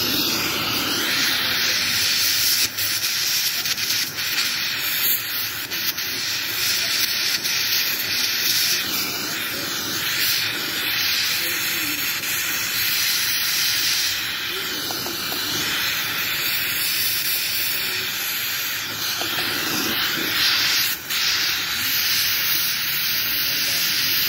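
Aluminium being arc-welded: the welding arc hisses steadily, starting abruptly, with small flickers and a couple of brief dips.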